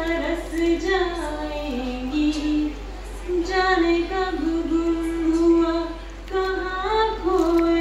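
A woman singing a slow melody solo into a handheld microphone, holding long notes and sliding between them.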